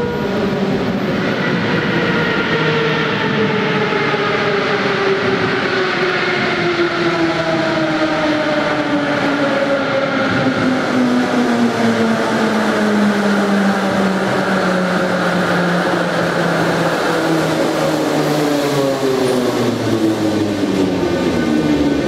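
Moscow Metro train pulling into a station: the traction motors' whine falls steadily in pitch as the train brakes, over the rumble of wheels on rail.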